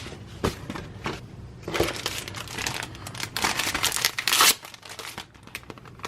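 Packaging crinkling and rustling in bursts as it is handled, with a couple of sharp clicks in the first two seconds and the busiest crackling in the middle.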